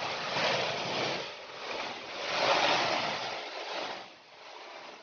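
Water of a small waterfall rushing and splashing, a steady hiss that swells twice and then eases off.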